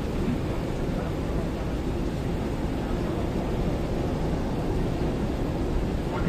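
Steady low rumble of ship engines on the water, mixed with wind noise.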